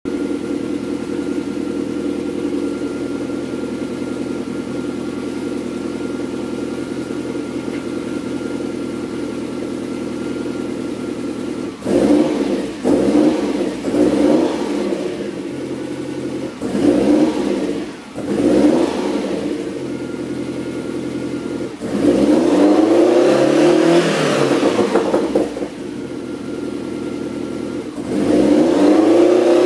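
Lotus Esprit engine on its exhaust before a Larini system is fitted, idling steadily, then revved in a run of short throttle blips, rising and falling each time, followed by two longer revs near the end.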